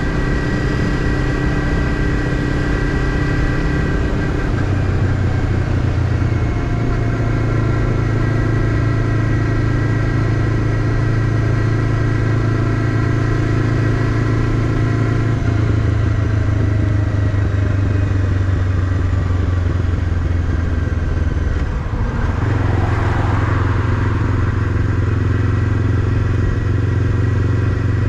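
Honda CBF500's parallel-twin engine running as the motorcycle is ridden along the road, its note shifting in pitch a few times. A brief rush of noise comes about three-quarters of the way through.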